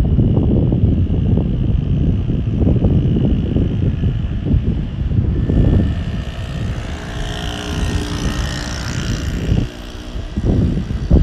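Low wind rumble buffeting the microphone. In the middle a vehicle passes, with a steady humming tone and a hiss that swells and fades.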